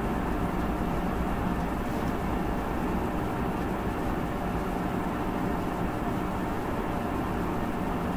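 Steady low rumbling background noise with a few faint steady hum tones, unchanging throughout.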